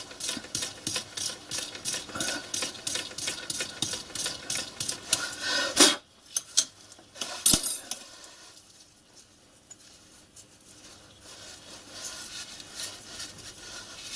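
A small 8BA threading die in a hand-turned die holder cutting a thread on a tiny screw: quick, rhythmic metallic scraping at about three strokes a second. It stops about six seconds in, with a couple of loud metal clacks as the die holder comes off, then only faint handling.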